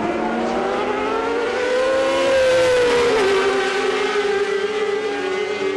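Racing sport-bike engines at high revs, a steady wailing whine that rises in pitch and grows louder about midway, then drops back as the bikes go by.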